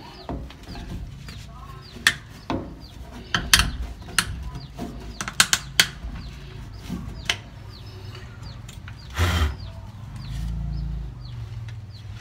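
Hard plastic clicks and knocks from PVC pipes and fittings being handled and pushed together, with a heavier thud about nine seconds in. Birds chirp over and over in the background, and a low hum comes in near the end.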